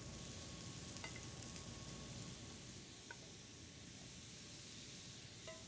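Raw beef burger patties sizzling steadily on a preheated ridged grill pan as more are laid down with tongs, the sizzle easing slightly later on; a few faint clicks. The sizzle is the sign of a properly preheated pan.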